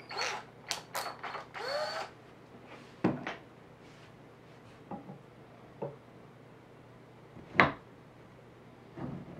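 Workshop handling sounds as a metal drill-guide jig and a cordless drill are set against a guitar neck heel clamped in a vise. A cluster of clicks, rattles and scrapes comes in the first couple of seconds, then scattered single sharp taps, the loudest about three-quarters of the way through.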